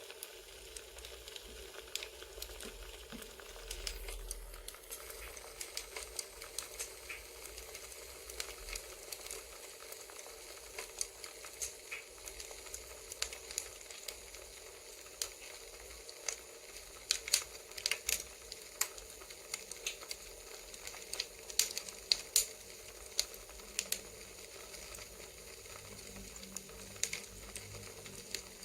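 Campfire crackling: a steady hiss of burning wood with irregular sharp pops and snaps, coming in louder clusters past the middle.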